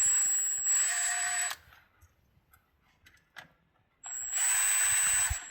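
Impact gun spinning an 8mm transmission valve body bolt back in, in two short bursts of a second and a half each with a high steady whine. Between them, a few faint clicks.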